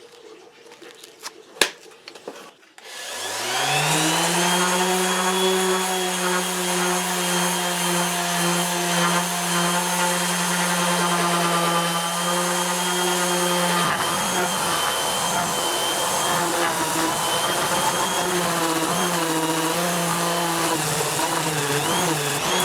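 Electric power sander: a couple of clicks, then its motor spins up about three seconds in, the whine rising to speed and running steadily. From about halfway the pitch wavers as it sands the wooden cutting board under changing pressure.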